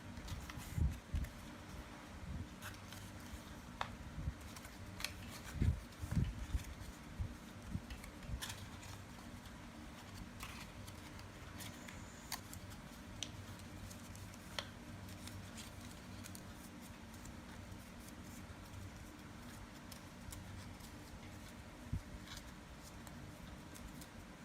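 A sheet of paper being handled and worked by hand, with scattered crisp crinkles and clicks and a few low thumps in the first several seconds, over a steady low hum.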